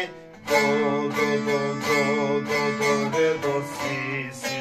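Bağlama (Turkish long-necked saz) played with a pick: a short melodic phrase of quickly repeated plucked notes, starting about half a second in.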